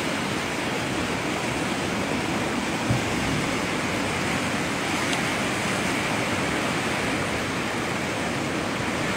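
Steady wash of rough sea surf breaking on a rocky shore.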